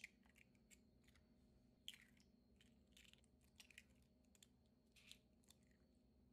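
Near silence broken by a dozen or so faint, irregular clicks and crackles.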